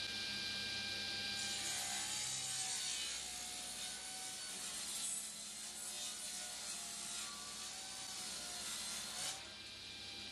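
Sliding table saw cutting through a wide jarrah slab, faint and steady, dropping away about nine seconds in as the cut finishes.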